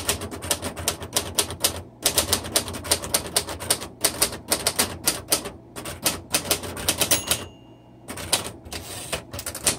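1961 Royal Tab-O-Matic manual typewriter being typed on fast, its keys striking in rapid clicks several times a second. About seven seconds in, a short ringing tone sounds, the typing stops for under a second, then it resumes.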